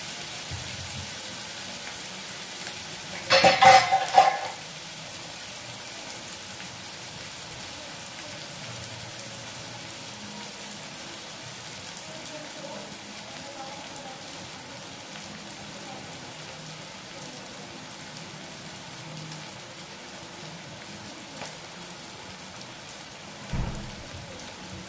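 Hot oil sizzling steadily in a pan, a tadka frying on the stove. About three and a half seconds in, a brief loud sound rises over the sizzle, and a short knock comes near the end.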